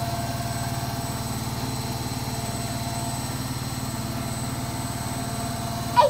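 Indesit front-loading washing machine running, a steady low hum with a fast, even pulse and a faint steady whine above it.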